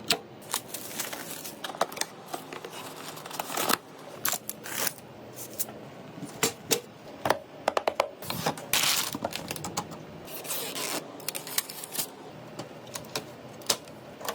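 Irregular clicks, taps and scrapes of small hard parts being handled, with a longer rustling scrape about nine seconds in.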